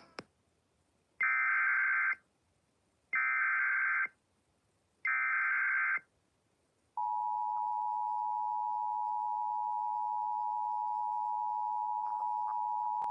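Emergency Alert System signal encoding a severe thunderstorm warning: three one-second bursts of digital SAME header data with short gaps between them, then about seven seconds in the steady two-tone EAS attention signal (853 and 960 Hz) begins.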